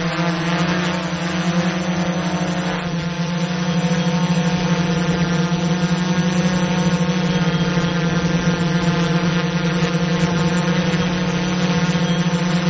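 Multirotor drone's propellers buzzing steadily while it flies, with a small change in pitch about three seconds in.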